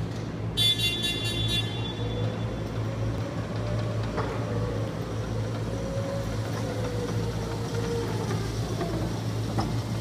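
Raymond R35-C35TT electric forklift driving, its electric drive giving a faint whine that rises, holds for several seconds and then falls away as it slows, over a steady low hum. About half a second in, a rapid high-pitched beeping lasts about a second.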